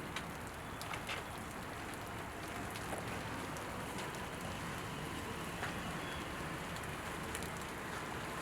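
Water spraying onto a car's body panels: a steady hiss with a few faint ticks.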